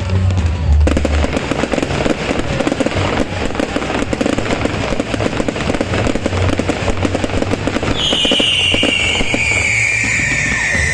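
New Year fireworks display crackling densely with rapid pops, over music with a recurring bass beat. From about eight seconds in, a long whistle falls slowly in pitch.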